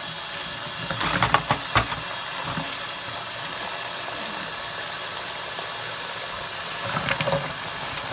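Kitchen tap running steadily into a sink, with a few knocks and clatters of oyster shells being handled in it about a second in and again near the end.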